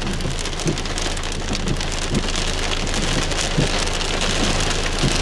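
Pea-sized hail and rain striking a car: a steady hiss with irregular sharper knocks from hailstones, over a low steady hum.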